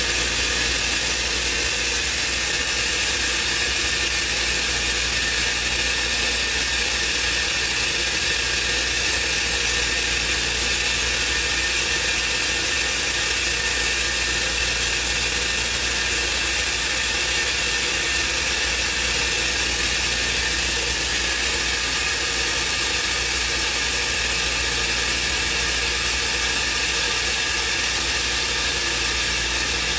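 CNC router running while machining a block of tooling board: steady machine noise, a strong high hiss over a low hum, with several constant tones and no change in level.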